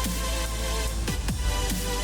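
Background electronic dance music with a heavy bass and a steady beat, falling pitch sweeps on each beat.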